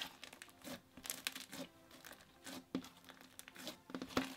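Thick, glossy blue clicky slime being squished, poked and folded by hand, giving a string of irregular small clicks and crackles.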